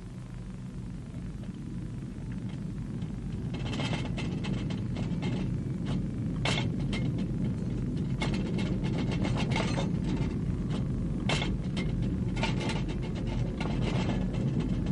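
Deep rumble that grows steadily louder, joined from about four seconds in by rattling and clicking of loose household objects: a re-created earth tremor shaking a house.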